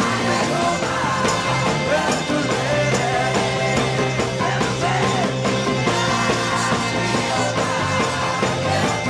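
Rock music played by a full band, with a singer's voice over it.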